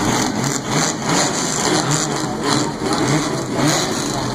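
Chevrolet Opala engines rumbling loudly and steadily.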